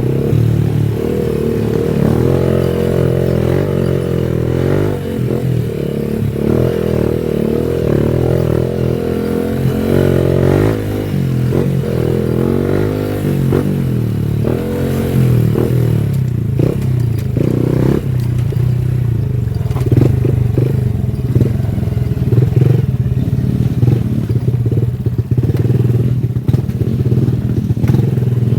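Honda Wave 110i underbone motorcycle's small single-cylinder four-stroke engine running on the move, its pitch rising and falling with the throttle, with some rattling and knocks.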